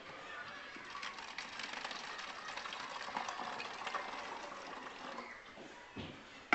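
Water being poured into a homemade cardboard-type box and trickling and splashing through it, a steady pattering that fades near the end.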